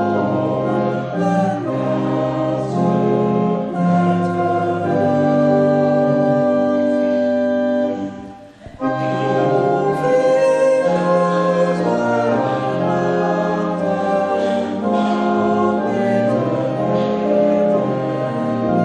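Congregation singing a hymn with organ accompaniment, sustained chords moving every second or so, with a short break about eight seconds in.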